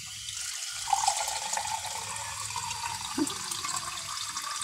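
Tap water running from a faucet-mounted water purifier filter and pouring into a drinking glass: a steady splashing stream, with a steady note coming in about a second in.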